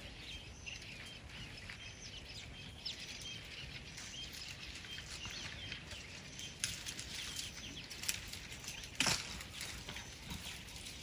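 Small birds chirping with short repeated high notes over an open-air background, with scattered light clicks and rustles. One sharp crack about nine seconds in is the loudest sound.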